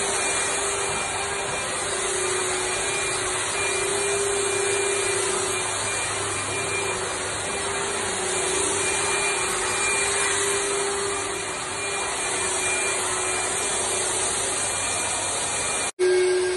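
Corded handheld electric disinfectant sprayer running steadily: a continuous motor-and-blower hum with a wide hiss of spray mist. The sound breaks off briefly near the end.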